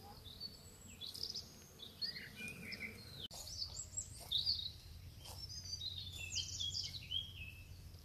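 Several songbirds chirping and singing in quick, overlapping high calls, over a steady low rumble.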